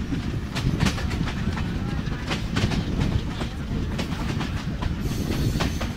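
Passenger train running along the track, heard from inside a carriage: a steady low rumble with frequent sharp clicks of the wheels over the rails.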